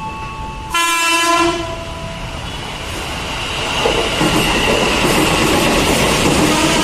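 JR 205 series electric commuter train sounding a horn blast of about a second, a little under a second in. It then runs through the station without stopping, its wheels clattering on the rails, louder as it passes close.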